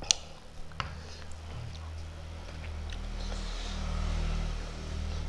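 A glass mug set down on a wooden table with a sharp clink, followed by a smaller knock a moment later. Then a low steady hum swells in and is strongest near the end.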